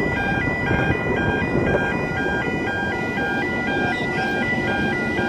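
Railway level-crossing warning bell sounding its electronic two-tone ding, alternating evenly and steadily while the boom gates are down, over a low rumbling background noise.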